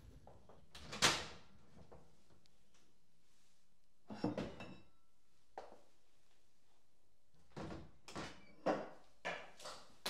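Hand pruning shears snipping rose stems: one sharp snip about a second in, a few more around the middle, and a quicker run of snips near the end.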